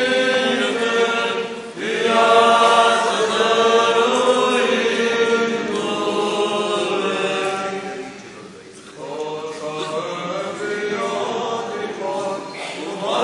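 Orthodox liturgical chant: voices singing long, held notes that move slowly in pitch, with a short lull about eight seconds in.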